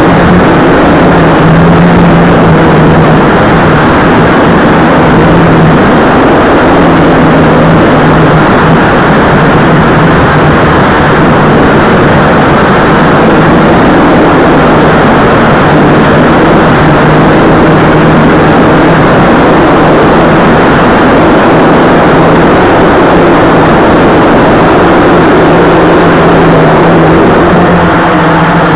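Blade 350QX2 quadcopter's four brushless motors and propellers running in flight, a steady hum over a loud rushing noise, picked up by the camera mounted on the craft.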